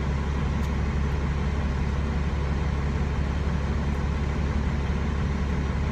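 Steady low hum of an idling semi-truck's diesel engine, heard from inside the cab.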